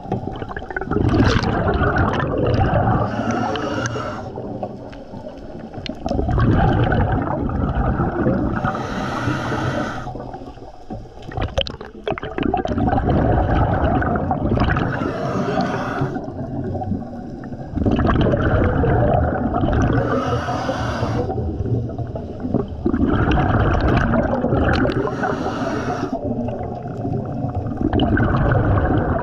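Scuba diver breathing through a regulator underwater: a short hiss on each inhale, then a longer gurgling rush of exhaled bubbles, repeating about every five to six seconds.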